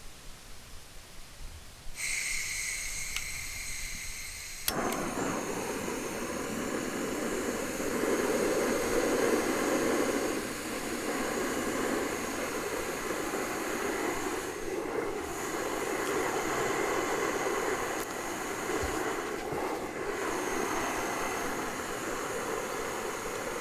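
Camping gas stove: gas hisses from the opened valve, a sharp click lights it about five seconds in, and the burner then runs with a steady roar.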